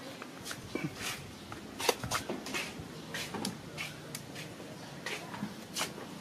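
Scattered light clicks and knocks at irregular times, with a faint steady low hum from about three seconds in.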